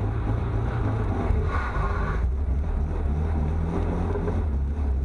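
Steady low rumble of a car engine running.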